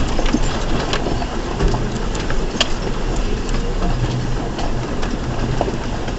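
2004 Ford Ranger's engine running at low speed on a rough trail, under a steady noise of tyres and body, with scattered knocks and rattles.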